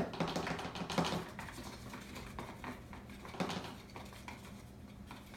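Small clicks, knocks and clatter of slime-making supplies being handled, plastic containers and a utensil against a bowl, with a sharp click at the start and scattered lighter taps after it.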